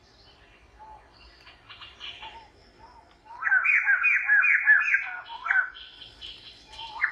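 A bird calling in a rapid series of short, arched notes, about four or five a second, with fainter calls before and after.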